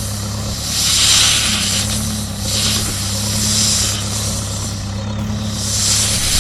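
A steady, low, engine-like hum with a hiss that swells and fades about once a second.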